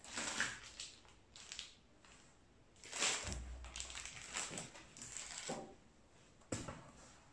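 Cardboard box and plastic packaging being handled during unpacking: several short bursts of rustling and crinkling, with a dull thump about three seconds in and a sharp knock near the end.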